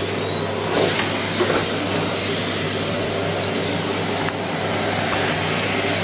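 Numatic Henry Blue 160 cylinder vacuum cleaner running steadily with a low hum and airy hiss, just switched on, its whine rising over the first second. Occasional faint clicks as oat flakes are sucked up from the carpet.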